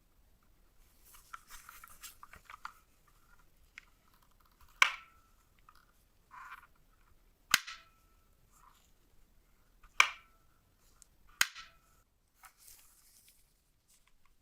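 Rustling of hands on hard items, then four sharp snapping clicks two to three seconds apart, each with a short ringing tail.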